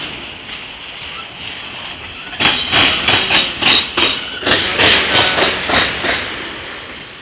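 Autorack freight cars rolling past close by, first as a steady rumble, then from about two and a half seconds in as a run of loud wheel clacks, about three a second, as the wheels cross rail joints and crossing track.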